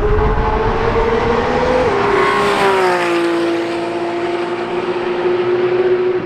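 Sports car engine and exhaust under acceleration. The pitch climbs, drops about two seconds in, then holds at a steady lower note.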